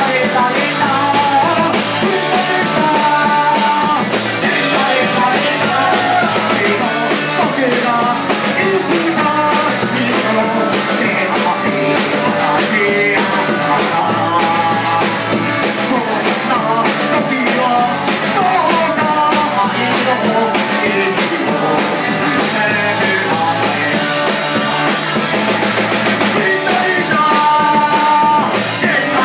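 Live rock band playing: electric guitar, electric bass and drum kit, with a harmonica played into the frontman's handheld vocal microphone carrying the lead line.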